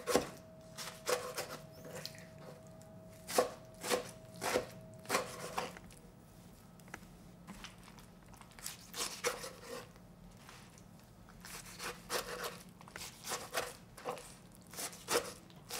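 Chef's knife chopping well-fermented kimchi on a wooden cutting board: sharp knocks of the blade through the wet cabbage onto the wood, scattered at first, then in quicker clusters in the second half after a short pause.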